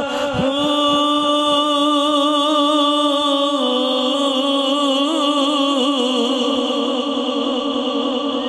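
A man's voice holding one long sung note of a naat recitation, sustained for several seconds with a slight waver in pitch and a small shift about three and a half seconds in.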